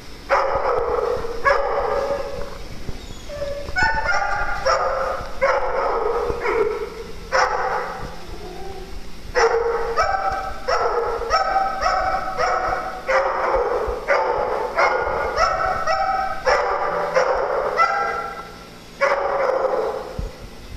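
A small dog barking over and over in high, sharp barks, about one or two a second, in runs with short pauses between them.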